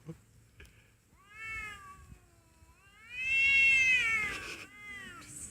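Cats yowling at each other in a fight standoff: long, drawn-out wavering calls, the loudest about three seconds in and a quieter one near the end.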